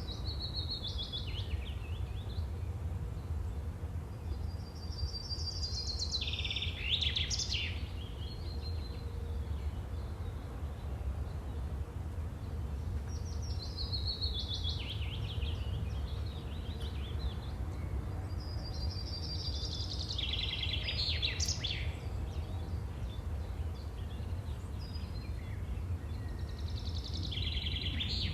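Steady low wind noise with a small bird singing short descending trilled phrases, about five times, several seconds apart.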